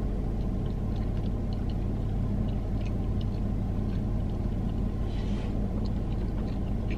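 Steady low hum inside a parked car with its engine idling, with small scattered clicks of someone chewing a bread roll.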